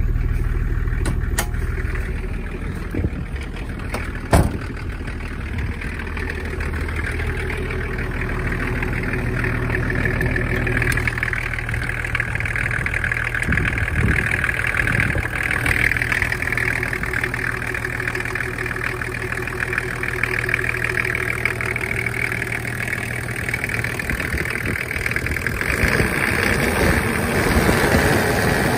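Toyota 1HZ 4.2-litre inline-six diesel idling steadily at about 1,000 rpm shortly after a cold start. One sharp knock sounds about four seconds in, and near the end the engine sound grows fuller and a little louder.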